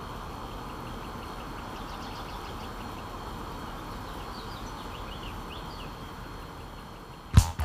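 Steady outdoor background rumble, like distant traffic, with a few faint bird chirps in the middle. Near the end, music with a heavy beat starts.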